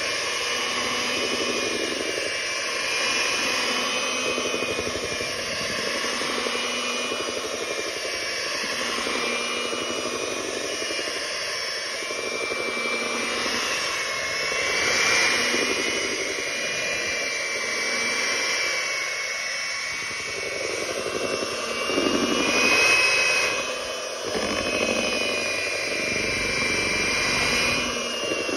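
Electric hand mixer running, its twin beaters whirring through thick cake batter in a bowl: a steady motor whine that wavers a little in pitch and loudness as the beaters move around the bowl.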